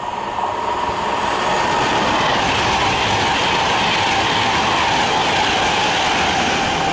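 Class 390 Pendolino electric train passing through the station at high speed: a loud, steady rush of wheel and air noise that swells in the first second, with a tone running under it that slowly drops a little in pitch.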